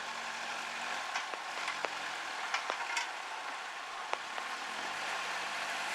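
Steady hiss of rain with scattered sharp drop ticks, over the Suzuki Jimny Sierra's engine running low and steady underneath.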